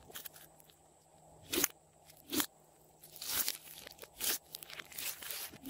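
Hands squeezing and kneading a large lump of glossy slime mixed with clay: irregular sticky pops and crackles, one or two a second.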